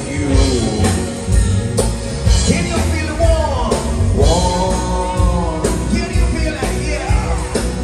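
Live band playing a song: a sung vocal line gliding over keyboard, electric bass and drums, with a steady beat in the low end.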